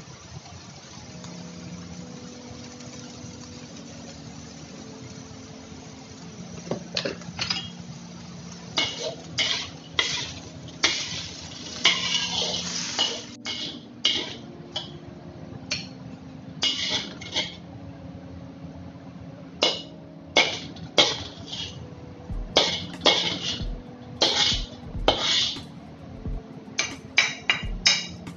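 Spatula scraping and knocking against a metal wok as the finished stir-fry is scooped out. After about six seconds of a steady low hiss, the scrapes come in short, irregular strokes, often one or two a second, to the end.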